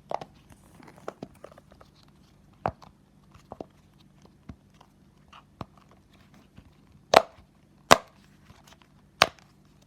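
Bubbles of a planet dimple pop-it fidget toy being pressed through one at a time: scattered soft pops, then three much louder pops near the end, really loud.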